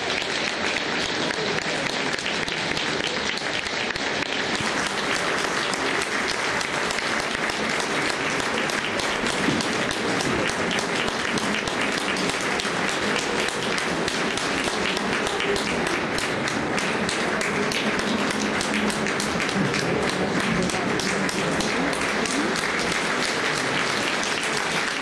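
Crowd applauding steadily, a dense patter of many hands clapping without a break.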